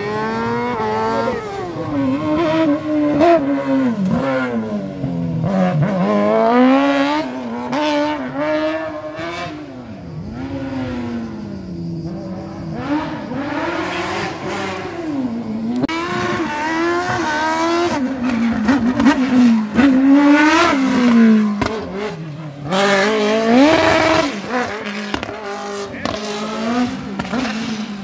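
A competition car's engine revving hard and lifting off again and again through the slalom course, its pitch climbing and dropping every second or two, with one long climbing rev near the end.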